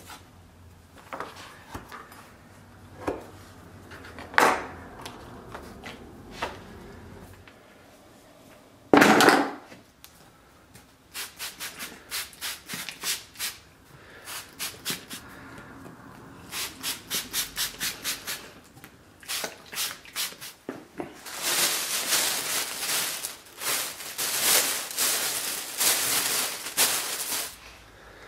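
Hand trigger spray bottle squirting water onto tooling leather in quick runs of squeezes, several a second, to dampen it for tooling. Before that, leather pieces knock against a cutting mat as they are handled, with one loud thump about nine seconds in.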